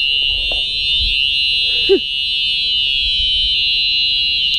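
Electric fire alarm sounding a continuous, steady high-pitched electronic tone. A brief falling sound cuts in about two seconds in.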